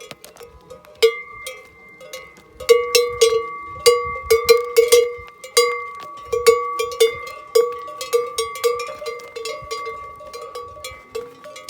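Cowbells on cows clanking irregularly, each strike ringing on. The clanking gets louder and busier a couple of seconds in, then eases off toward the end.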